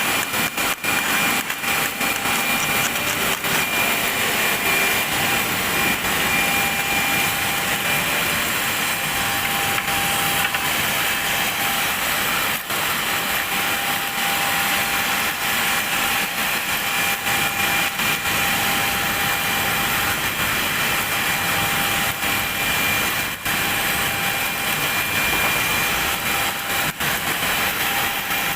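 Welding arc burning steadily: a continuous crackling hiss with a faint steady whine.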